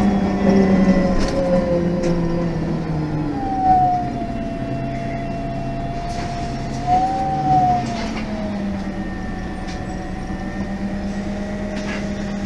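MAN NG 273 M18 articulated bus with LPG engine and Voith automatic gearbox, heard from inside: the engine's pitch falls in steps, then a high whine glides up and wavers for a few seconds before settling into a steady low hum.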